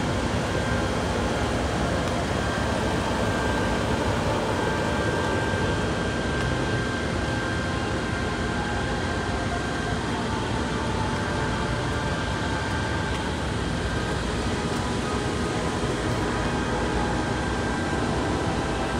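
Steady mechanical hum and hiss, even in level throughout, with a few faint steady tones running through it.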